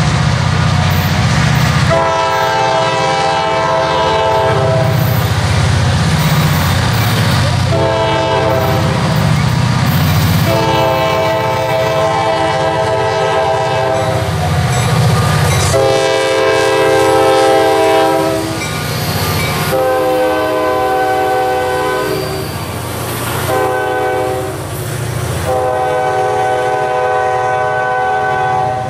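Diesel freight locomotive approaching a grade crossing, sounding its multi-note air horn in a long series of long and shorter blasts over the low rumble of its engine. Near the end the boxcars roll past.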